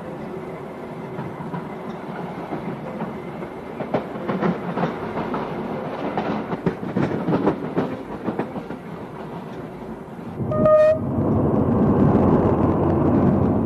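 Train running on the rails, heard from aboard, with irregular clicks of wheels over rail joints. About ten and a half seconds in comes one short horn toot, followed by a louder, heavier rumble.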